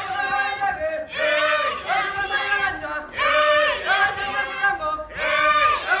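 A group of performers in traditional red dress chanting and singing together in unison, in short repeated phrases about a second apart.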